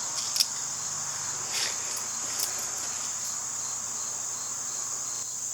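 Crickets chirping steadily in a high, continuous trill, with a few light clicks about half a second, a second and a half and two and a half seconds in.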